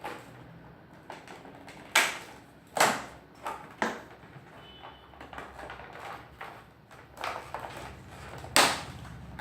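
A camera clamp mount and its packaging being handled and unpacked: a run of clicks, knocks and rustles. The loudest come about two, three and four seconds in and again near the end.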